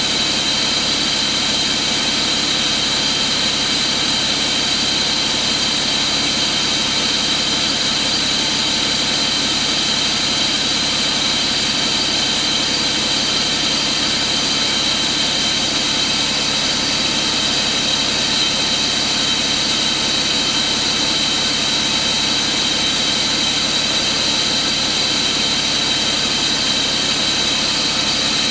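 Cummins ISX15 inline-six diesel engine idling steadily, with a steady high whine over its running.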